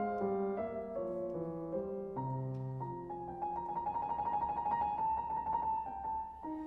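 Background piano music: a melody of separate notes, then a fast repeated high note through the middle.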